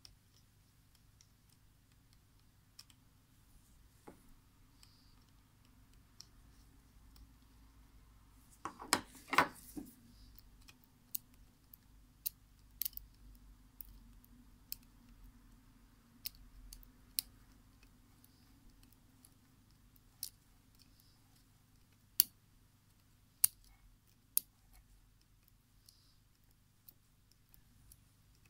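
Small sharp clicks of tweezers and a screwdriver tip against the small plastic parts of a webcam's lens housing being taken apart, scattered and irregular. About nine seconds in there is a louder burst of handling noise lasting a second or so.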